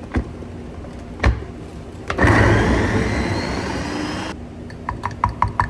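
Small electric food chopper running for about two seconds, mincing peeled garlic cloves, with a faint rising whine as it spins. A couple of knocks come before it and a quick run of light clicks follows near the end.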